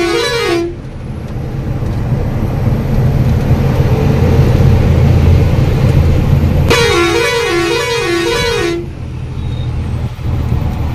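Truck's diesel engine running steadily, swelling in the middle. A musical two-tone air horn sounds its alternating high-low warble briefly at the start and again for about two seconds some seven seconds in, honking for the vehicle ahead to give way.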